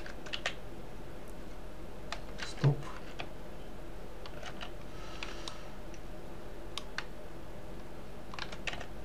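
Computer keyboard keys and mouse clicks tapping at irregular intervals, one heavier tap with a low thud about two and a half seconds in, over a low steady hum.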